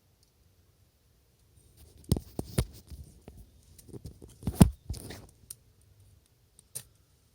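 Wood snapping and crackling: a cluster of sharp cracks and knocks, the loudest about four and a half seconds in, then one lone snap near the end.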